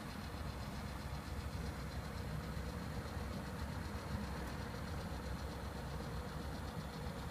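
Attias GRY-3 gas vertical broiler with its infrared burners lit and running, a steady low rumble without breaks.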